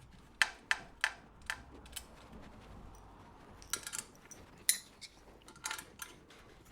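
Two 10 mm spanners clinking against the nuts and bolts of a bed frame's top bars as they are undone: irregular sharp metallic clicks, a few in quick succession.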